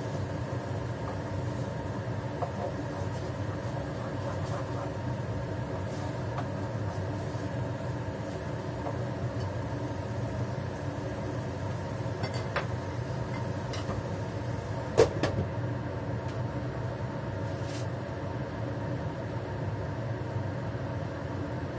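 Spatula scraping and knocking in a frying pan of tofu a few times, with one sharp knock about fifteen seconds in. A steady motor hum, like a kitchen fan, runs underneath throughout.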